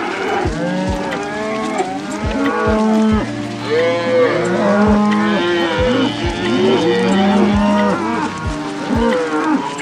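Cattle mooing, many calls overlapping one another, over a regular low thump about twice a second.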